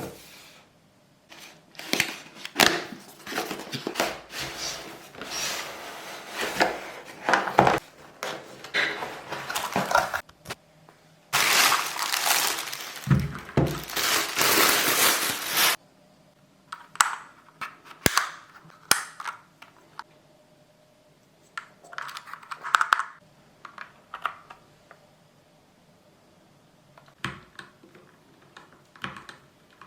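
A keyboard's box and packaging being opened and handled: irregular knocks, taps and rustling, with a dense stretch of crinkling packaging noise in the middle that stops abruptly, then scattered clicks and knocks.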